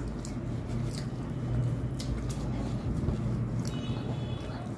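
Quiet eating sounds: scattered soft clicks and squishes of fingers tearing paratha and picking up potato curry on a plate, over a steady low hum.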